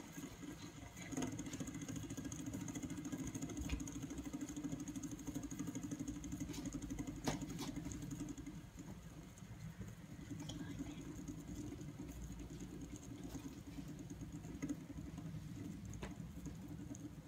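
Three-armed fidget spinner spinning flat on a wooden desk: a steady low whir with a fine rapid flutter and a few light clicks. The whir dips briefly about halfway through, then carries on.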